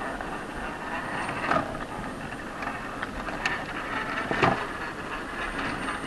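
Traxxas TRX-4 RC rock crawler with a Jeep Wrangler Rubicon body crawling slowly down a rock ledge: the low running noise of its electric motor and drivetrain, with a few sharp knocks as the tyres and chassis bump over rock and dirt.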